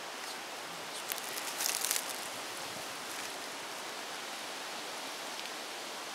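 A brief burst of crackling rustle, about a second in, as a game bag of elk meat is handled on a horse's pack saddle, over a steady hiss.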